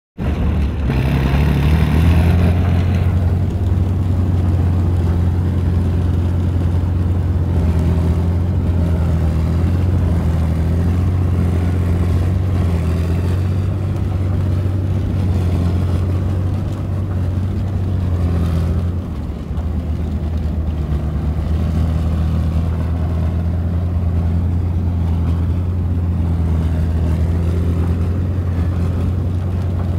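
BVP tracked infantry fighting vehicle on the move, heard from on top of the hull: its UTD-20 diesel engine runs with a loud, steady low drone. A burst of hiss comes in the first few seconds, and the engine note dips briefly about two-thirds of the way through.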